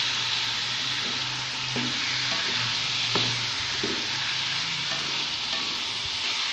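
Boneless chicken pieces frying in hot oil in an open pot, a steady sizzle, while being stirred, with a few light knocks of the stirring spoon against the pot.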